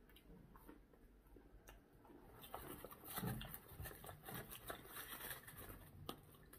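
Faint eating sounds: small clicks and rustles of chewing and handling food, growing busier about two and a half seconds in.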